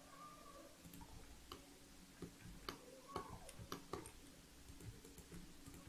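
Faint, irregular clicks of a computer mouse and keyboard being worked, over low room hiss.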